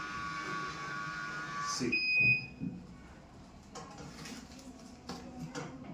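Automatic sanitary napkin vending machine dispensing after a coin: its motor runs with a steady whine that stops about two seconds in, followed at once by a short electronic beep. A few faint knocks follow.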